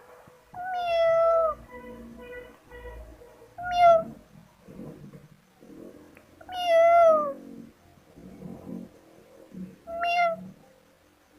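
Kittens meowing: four loud, high meows a few seconds apart, each dropping in pitch at its end, with softer short mews in between. Faint low scuffling noises fill the gaps.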